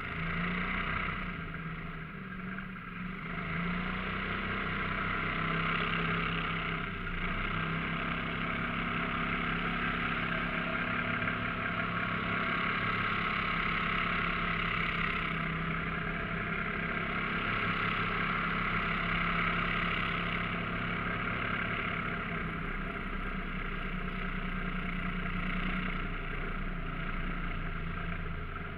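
Mud motor running at steady throttle, pushing the boat, over a steady hiss. Its level dips briefly a couple of seconds in, and its pitch steps up about a quarter of the way through before holding even.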